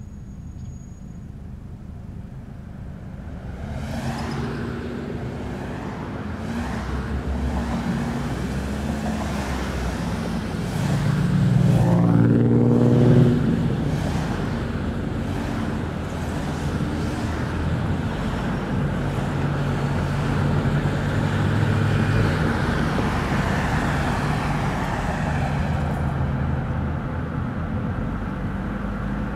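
Car driving on a road, with steady engine and tyre noise that grows louder about four seconds in. Around twelve seconds in, a passing vehicle swells to the loudest point and falls in pitch as it goes by.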